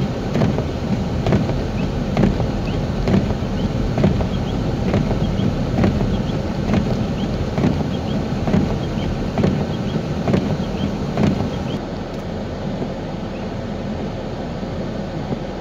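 Car driving on a snowy road, heard from inside: a steady road and tyre rumble with a regular thump a little under once a second. About twelve seconds in, the thumps stop and the rumble drops a little.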